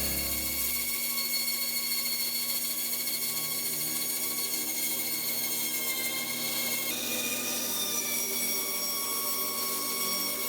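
Belt grinder running steadily with the steel blade held against the belt, giving a constant grinding hiss; the tone shifts slightly about seven seconds in.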